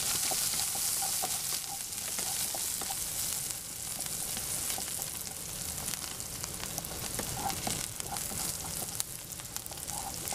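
Sliced onions sizzling in hot oil in a nonstick kadai as a slotted spatula stirs them, with scattered scrapes and taps of the spatula on the pan. The onions are being sautéed until they turn reddish.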